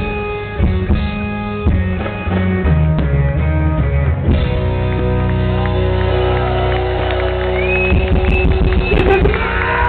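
Live rock band with keyboards playing loud through a PA: the bass steps through a short run of chords, then the band holds one long chord from about four seconds in.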